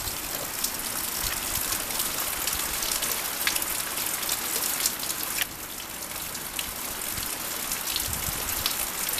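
Floodwater rushing as it runs off into a ditch: a steady hiss of water with scattered small drip-like ticks.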